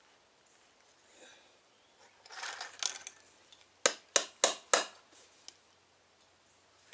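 A short scraping rustle, then four sharp hammer taps about three a second, driving a bolt through a tight drilled hole in a homemade wooden bow saw frame whose holes were not cleaned out.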